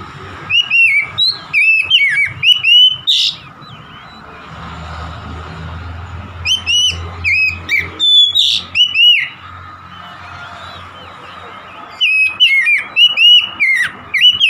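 Oriental magpie-robin singing: three bouts of loud, sweeping whistled phrases, each about two to three seconds long, with a low steady rumble in the pauses between them.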